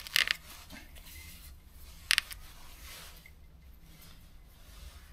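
Short scraping, rubbing sounds of a rubber spark plug cap being twisted off an ignition lead, in two brief bursts: one right at the start and another about two seconds in. The lead is suspected of causing the missing spark on one cylinder.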